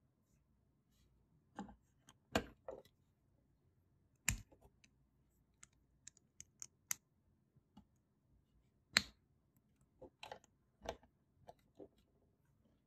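Plastic Lego bricks clicking and snapping together as pieces are handled and pressed on, in irregular sharp clicks, the loudest at about two, four and nine seconds in.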